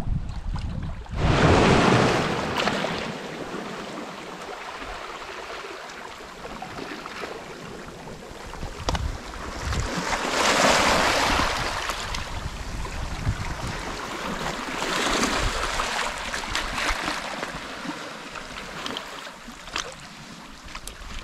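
Small sea waves washing in over shoreline rocks and pebbles, a steady wash that swells louder three times, the first about a second in, with wind buffeting the microphone.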